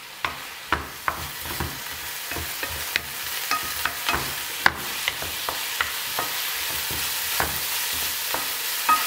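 Wooden spatula stir-frying mushrooms and kelp in a nonstick frying pan: knocks and scrapes against the pan about twice a second over a sizzle of oil that grows louder about a second in.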